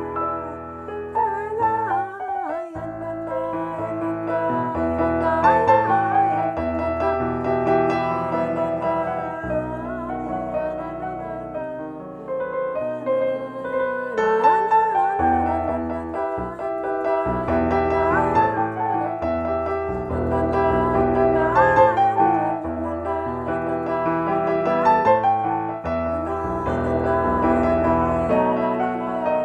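A wordless Hasidic melody (nigun) sung with keyboard accompaniment: chords and bass notes under a singing melody line that returns to the same phrase again and again.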